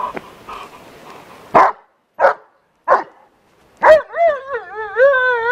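German shepherd dog barking: four sharp barks about half a second apart, then a long, wavering high whine. It is the vocalising of a dog keen for the bite during bite work.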